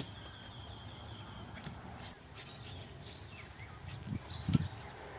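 Outdoor ambience with faint bird chirps, and a single knock about four and a half seconds in.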